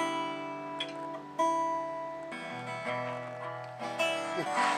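Acoustic guitar playing a slow picked tune with its notes and chords left to ring. Fresh chords are struck about a second and a half in and again near the end, where a short sliding note rises.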